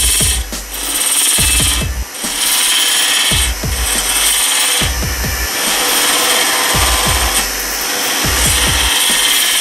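Wood lathe spinning while a thin hand-held turning tool hollows out the end grain of a wooden blank, a steady scraping cut throwing off shavings.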